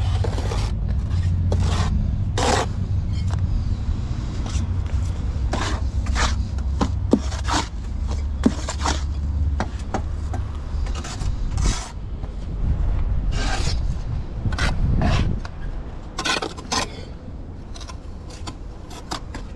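Bricklaying work: a steel trowel scraping mortar and clay bricks scraped and set into a mortar bed, a scatter of irregular scrapes and knocks over a steady low rumble.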